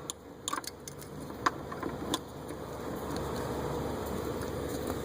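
A few light metallic clicks and taps of parts being handled, then from about three seconds in a steady mechanical hum, like a vehicle engine running, comes up and holds.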